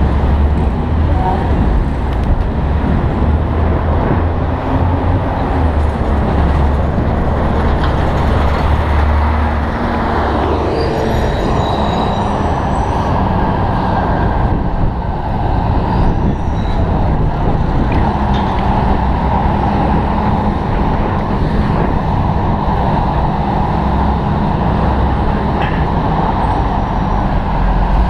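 City street traffic heard from a moving bicycle: a steady mix of car, truck and bus engines and tyre noise, with a heavy low rumble throughout.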